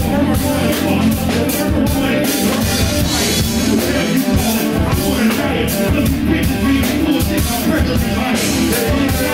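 Live band music with a drum kit and guitar playing a rock-tinged hip-hop song, with a vocalist's voice on a microphone over the band.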